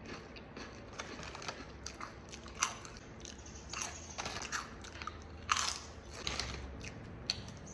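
Close-up crunching and chewing of crisp potato chips, a quick irregular run of crackly bites, with two louder crunches, one about two and a half seconds in and another near the middle.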